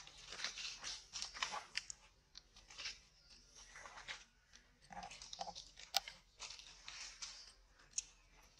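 Irregular crunching and crackling of dry leaf litter under a long-tailed macaque's feet, with a sharp click about six seconds in.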